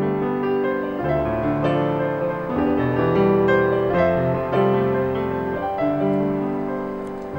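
Piano music, with a melody over chords, each note struck and left to ring.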